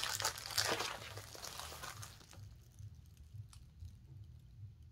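Packaging crinkling as it is handled for about two seconds, then dying away to a low hum with a couple of faint clicks.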